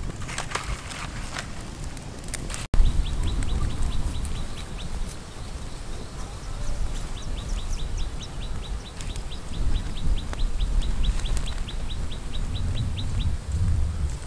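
A wood fire crackling with sharp pops for the first few seconds, then a bird calling a long run of short, high, downward chirps at about four a second, over a low rumble.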